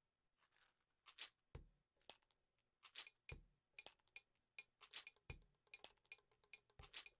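Faint sharp clicks, taps and clinks of small objects handled at desks, such as a pen and a soda can, coming faster and closer together toward the end. A soft low thud comes about every one and a half to two seconds.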